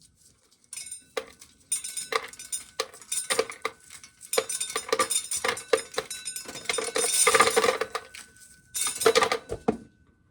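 Dry corn kernels clattering and clinking against a metal pail in irregular bursts, heaviest near the end.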